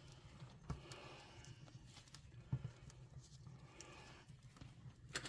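Faint handling sounds: a few light knocks and soft rustling as a strap is picked up.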